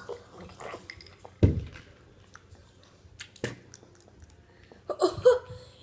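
Mouth noises of chewing jelly beans and drinking water, with a dull thump about a second and a half in and a sharper knock about three and a half seconds in. A short wordless voice sound comes near the end.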